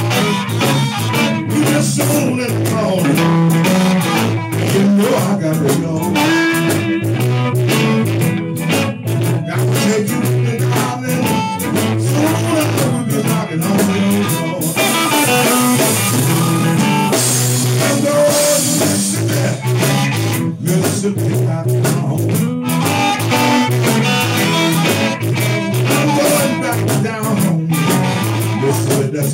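Live electric blues band playing: a blues harmonica cupped against a handheld microphone and played through an amp, over electric guitars and a drum kit.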